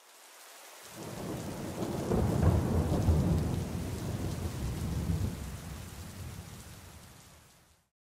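Rain falling with a long roll of thunder that builds about a second in and slowly fades away near the end.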